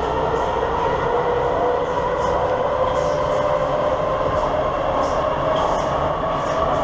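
Loud running noise inside a Communist-era metro car on the move: a steady rumble and rattle of wheels on rail, with a motor whine that slowly rises in pitch.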